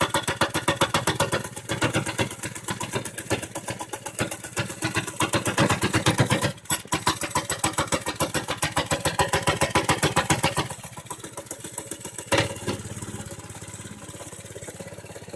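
Motovox minibike's small single-cylinder engine running on choke just after a cold start, its firing pulses swelling and easing. It stumbles briefly about six and a half seconds in, then settles to a quieter, slower idle near eleven seconds.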